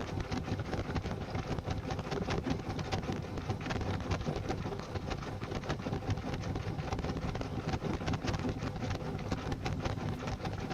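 Washing machine running a wash cycle: a steady low hum with water sloshing and many small knocks from the items tumbling in the drum.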